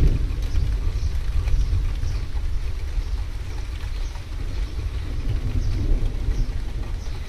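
Thunderstorm ambience: scattered raindrops tapping under a loud low rumble that slowly eases over several seconds.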